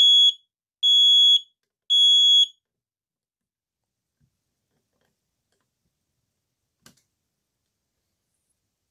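First Alert SA700 smoke alarm sounding on its test button: three loud, high-pitched beeps about a second apart, then it stops.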